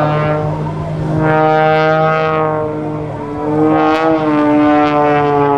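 Aerobatic propeller plane's piston engine droning overhead, its pitch sliding down, rising again about four seconds in, then falling as the plane maneuvers.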